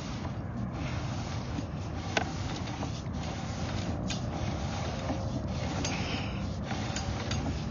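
Sewer inspection camera's push cable being fed down a drain line, a steady rubbing with scattered clicks as the cable and camera head work along the pipe.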